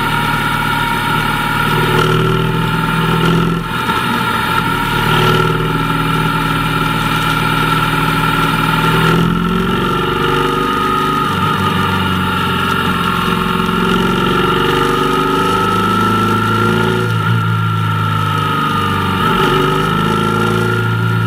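Motorcycle engine running under way, its note shifting up and down several times with throttle changes, over steady rushing noise.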